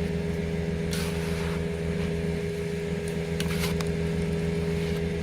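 An engine running steadily at a constant speed, giving an even, unchanging hum. It is most likely the work machinery at a septic tank dig.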